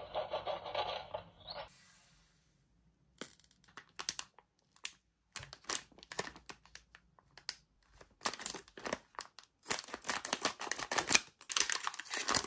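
Toy packaging being handled and opened: plastic and cardboard crinkling and tearing, with many quick clicks and crackles that come thicker towards the end.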